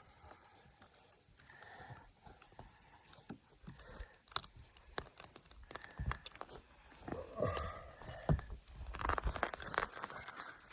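Scattered knocks, scuffs and footsteps of work on a roof as roofing material is handled, with a louder stretch of rustling near the end.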